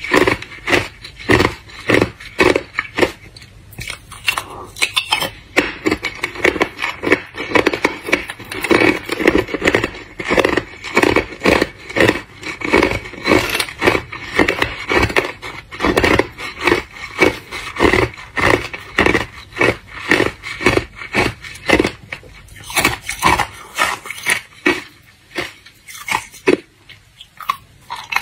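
Hard clear ice being bitten and chewed close to the microphone: a continuous run of crisp cracking crunches, a few each second.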